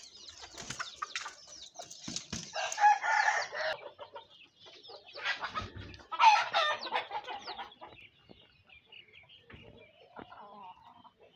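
Hens clucking and calling, with two louder drawn-out calls about three seconds in and again about six seconds in, and softer clucks towards the end.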